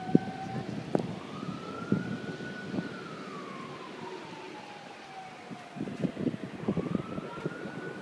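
A siren wailing slowly: it rises about a second in, holds briefly, falls gradually over several seconds, and rises again near the end. Gusts of wind rumble on the microphone underneath.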